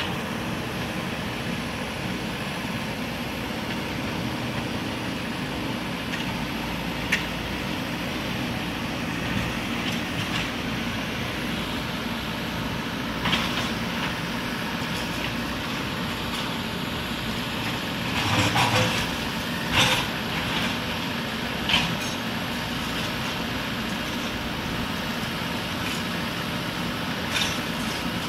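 JCB 3DX backhoe loader's diesel engine running steadily under work, with scattered sharp knocks and clanks of concrete rubble and steel. The knocks bunch together about two-thirds of the way through.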